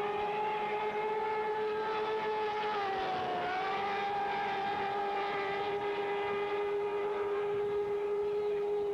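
Racing outboard motors, among them a V4, running flat out on race boats: a steady high-pitched whine whose pitch sags briefly about three seconds in and then comes back up.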